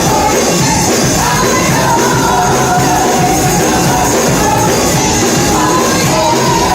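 Live gospel worship music: a band playing with singing, loud and continuous.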